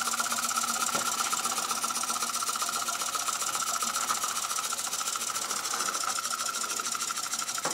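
Robert Fulton vertical toy steam engine running steadily under steam, a fast, even mechanical chuff-and-clatter with a constant hiss.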